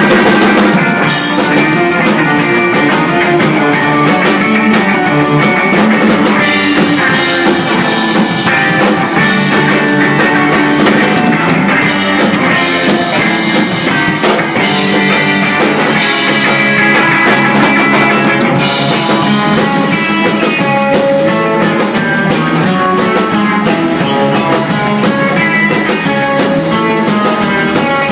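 Live instrumental spy-themed rock: electric guitars playing a busy melody over a drum kit with cymbals, loud and steady throughout.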